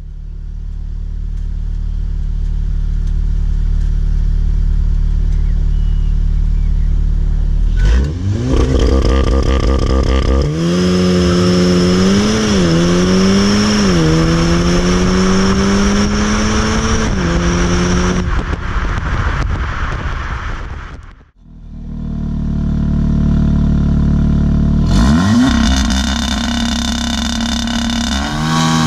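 Volkswagen Golf R mk7.5's turbocharged 2.0-litre four-cylinder heard at the tailpipes through the stock exhaust: running steadily, then accelerating hard, pitch climbing and falling back at two quick upshifts. After a break, the same engine through an aftermarket IPE valved exhaust, steady at first and revving up near the end.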